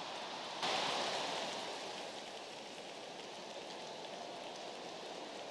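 Large hall audience breaking into applause and laughter about half a second in, then tapering off to a steady patter.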